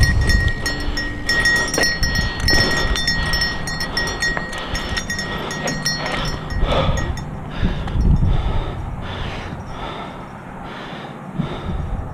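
Santa Cruz Nomad full-suspension mountain bike riding down rock slabs: tyres rumbling and knocking over the rock with rattling from the bike, the noise dying down after about eight seconds as the bike slows almost to a stop.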